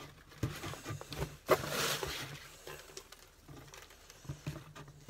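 Shredded paper filler rustling as handfuls are pushed back into a cardboard box, with the loudest rustle about one and a half seconds in.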